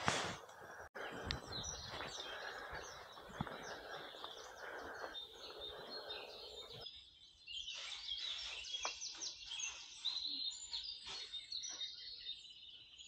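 Faint outdoor ambience with small birds chirping and singing, a string of short high chirps growing busier about halfway through.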